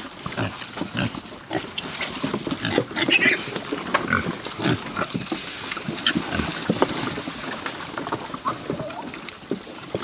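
Several pigs grunting and calling at a feed trough as whey is poured in for them, with a few sharper high-pitched calls about three seconds in.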